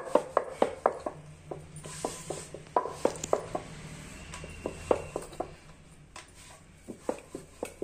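Wooden rolling pin knocking and clacking on a round wooden board as poori dough is rolled out: irregular sharp taps, several a second at first, thinning out as the dough is lifted and turned by hand.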